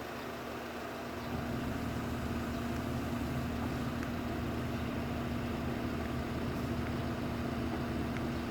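Hyundai Mighty truck's diesel engine idling steadily, a constant hum that gets louder about a second in.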